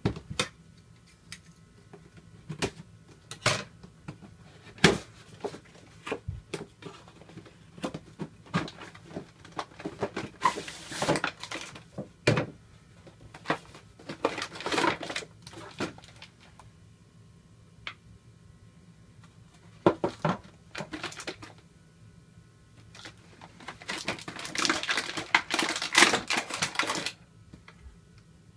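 Toy packaging being handled: a cardboard box and a clear plastic blister tray tapped, slid and clicked, with scattered sharp clicks throughout. Bouts of plastic crinkling come about ten seconds in and again near the end, as the figures are worked out of the tray.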